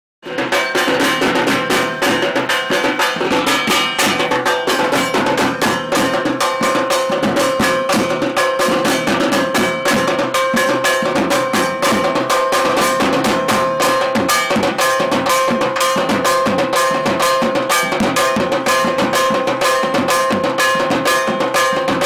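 Fast, dense drum music with a bell-like metallic beat over a steady held tone, starting suddenly out of silence just after the start.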